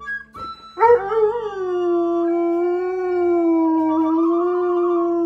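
A dog howling: one long howl that starts about a second in, wavers at first and then holds a steady pitch.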